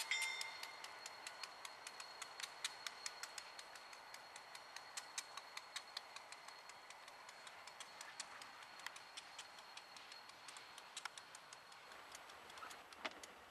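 Railroad grade-crossing bell ringing faintly, a rapid even ticking about four strikes a second, with a high ringing tone that fades over the first few seconds.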